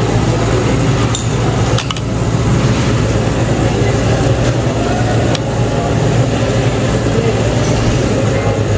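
Busy restaurant dining-room noise: a steady low hum under murmured background chatter, with a few sharp clinks of chopsticks and spoons against ceramic dishes.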